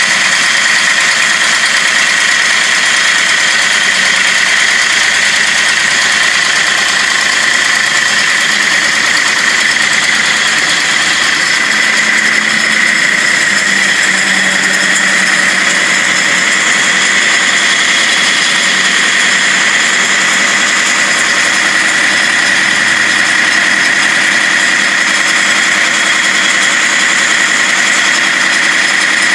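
A 2001 International 4900 drill truck and its drill rig running steadily, with a steady high whine over the engine.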